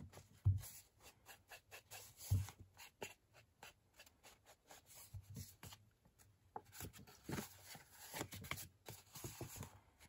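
A foam sponge dauber dabbed and rubbed along the edges of cardstock to ink them, giving soft irregular scuffs and ticks, with the paper rustling as it is turned. A couple of soft thumps in the first few seconds.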